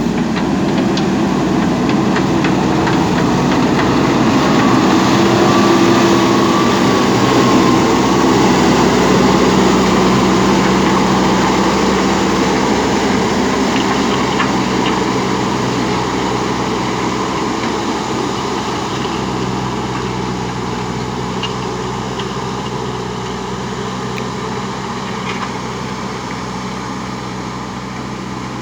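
JCB backhoe loader's diesel engine running steadily under work, growing a little louder in the first few seconds and then slowly easing off.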